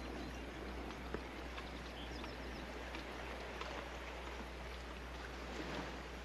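Quiet outdoor ambience: an even hiss with a steady low hum, a few faint bird chirps about two seconds in, and a small click about a second in.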